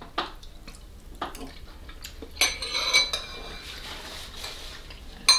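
Metal spoons clinking and scraping against soup bowls during eating: a few separate clinks, one ringing on for most of a second near the middle.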